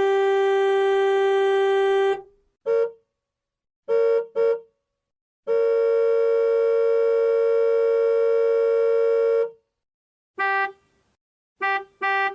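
Vehicle horn honking in a pattern: a long blast that ends about two seconds in, a short toot, a quick double toot, a long blast of about four seconds at a slightly higher pitch, then a single toot and a quick double toot near the end.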